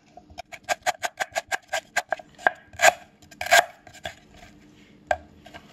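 Chef's knife slicing lemongrass stalks on a wooden cutting board: a quick run of sharp knocks, about six a second, with a few louder strokes in the middle, then stopping and leaving two single knocks near the end.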